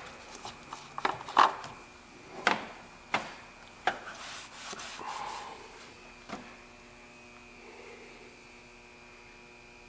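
Handling noise under the hood: a series of sharp knocks and clicks with some rubbing as parts and tools are picked up and set down, then a faint steady hum.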